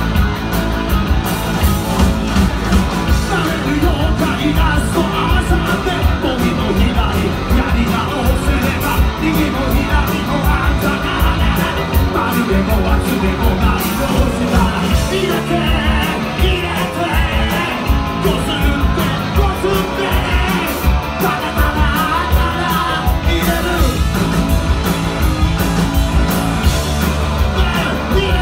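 Rock band playing live: electric guitars, a drum kit keeping a steady beat, and a lead vocalist singing into a microphone, loud and without a break.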